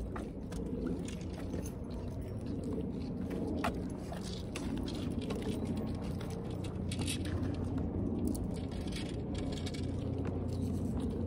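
A steady low engine hum, with scattered light clicks and rustles over it.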